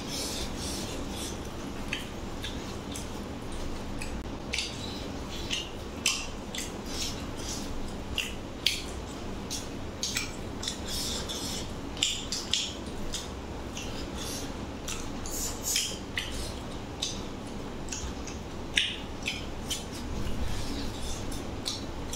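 Close-miked eating sounds: chewing and lip-smacking on chicken and rice eaten by hand, with fingers scraping and tapping on a stainless steel plate, in many short irregular clicks.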